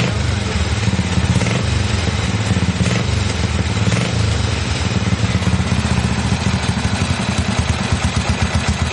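Triumph 750 parallel-twin motorcycle engine running steadily, with a fast pulsing beat.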